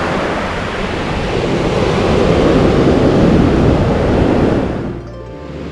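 Ocean surf washing onto a sandy beach, with wind rumbling on the microphone. The wash swells to its loudest in the middle and falls away sharply near the end.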